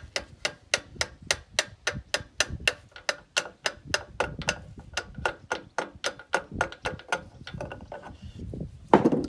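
Small hammer tapping a gudgeon pin out of a Gardner 3LW diesel piston: light, sharp metallic taps about three to four a second, struck very gently to spare the conrod's small-end bush. The taps thin out near the end, and a louder knock comes just before the end.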